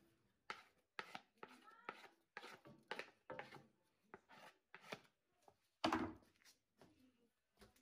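Wooden spatula working thick fufu dough in an aluminium pot: a run of soft slaps and knocks, roughly two a second, with the loudest knock about six seconds in.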